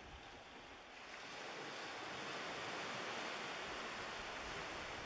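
Small waves washing on the shore: a steady hiss that swells about a second in and eases off a little toward the end.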